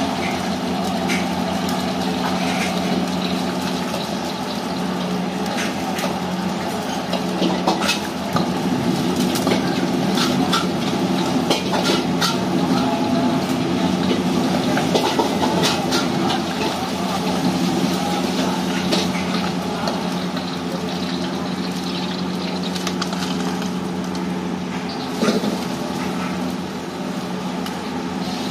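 Steady mechanical hum from a wok station's gas burner and fan, with a metal ladle clinking and scraping against the wok many times.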